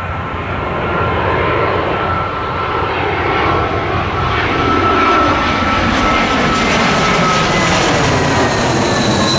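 Twin-engine Airbus A320-family jet on final approach with landing gear down, passing low overhead: a steady jet engine rumble and whine that grows louder, the whine slowly falling in pitch as it goes over.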